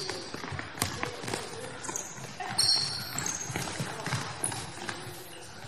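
Futsal play on an indoor hall floor: the ball being kicked and thudding on the hard court, shoes squeaking in short high squeals, and players' voices calling out.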